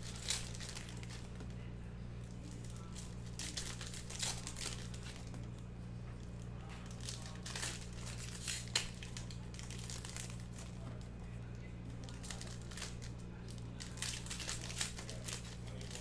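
Plastic trading-card pack wrappers crinkling and tearing in irregular bursts as packs are opened, over a steady low hum.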